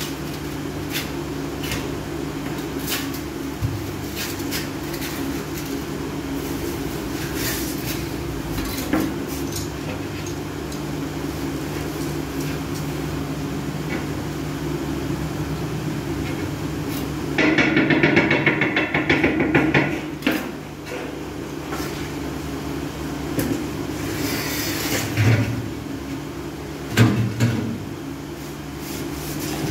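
Floor tiles being set in mortar by hand: scattered knocks and clinks of tile on tile and on the floor, with a louder, noisier stretch of about two seconds a little past the middle and a few heavier knocks near the end, over a steady low hum.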